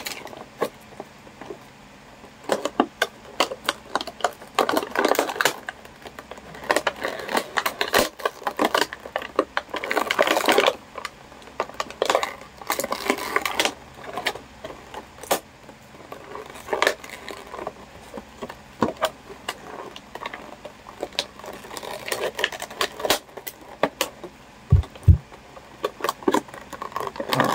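Scissors cutting through a stiff clear plastic blister pack, with irregular sharp snips and crackling and crinkling of the plastic as it is bent and handled.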